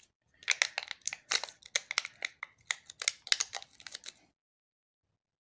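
Crinkling and crackling of a removed phone battery's foil-like wrap and its stuck-on adhesive as it is handled in the fingers, a dense run of small crackles that stops about four seconds in.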